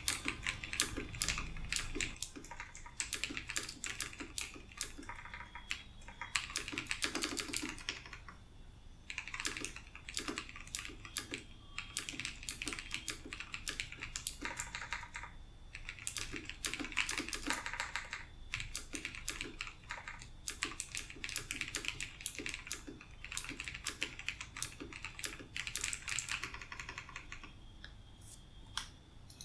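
Typing on a TVS Bharat Gold mechanical keyboard with clicky Long Hua Blue switches (Cherry MX Blue clones) lubed with coconut oil. Fast runs of key clicks come with short pauses between bursts.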